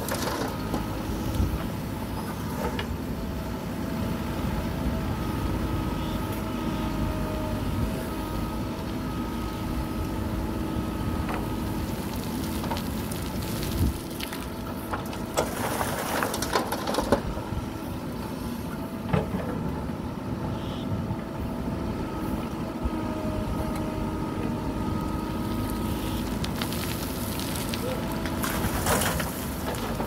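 Mahindra SX90 backhoe loader's diesel engine running steadily as the machine works. About halfway through, a bucketload of gravel pours into a dump truck's steel bed with a rush of falling stones, and a shorter burst of the same kind comes near the end.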